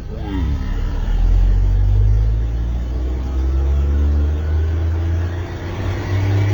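Turbocharged car engine running with a loud, deep drone. Near the end it picks up revs, and a rising whine climbs above it.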